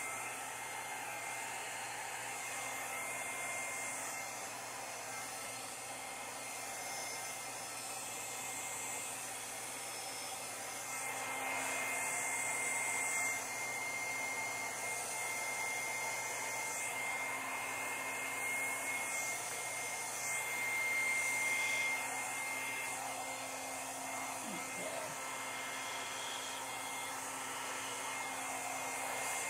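Handheld hair dryer running on its low setting: a steady rush of air with a thin whine, swelling a little in loudness now and then.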